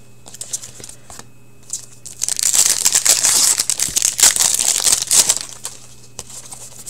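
Plastic-foil wrapper of a hockey card pack crinkling loudly as it is torn open and handled, for about three seconds in the middle. Light rustle and ticks of cards being handled before and after.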